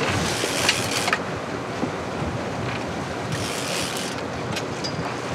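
Sea noise aboard a sport-fishing boat: water washing along the hull, with wind buffeting the microphone. There are two brief stretches of brighter hiss, about half a second in and again after three seconds.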